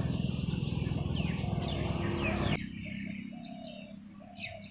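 Birds chirping in short falling notes, joined by repeated lower notes in the second half. A loud low rumbling noise runs under them and cuts off suddenly about two and a half seconds in.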